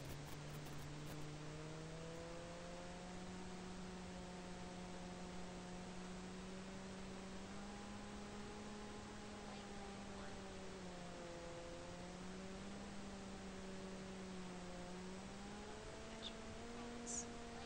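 Electric motor and propeller of a Mako FPV flying wing running, heard as a faint hum over steady hiss. Its pitch climbs in the first seconds, sags in the middle and rises again near the end, following the throttle as the autopilot flies its waypoint route.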